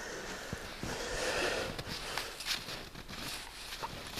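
Snow crunching and rustling with a person's breathing, broken by a few sharp clicks, as someone works at a rock stuck in frozen ground.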